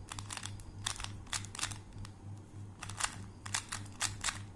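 Plastic 2×2 Rubik's cube being turned by hand: quick clusters of sharp clicks as the layers snap round, in several short bursts with pauses between.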